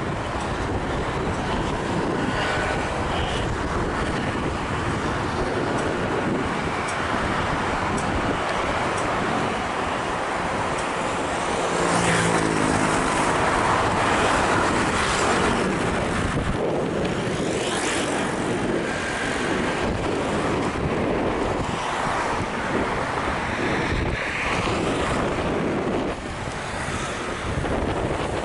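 Road traffic: cars and motor scooters running and passing on a city street. One passing engine's note stands out about twelve seconds in.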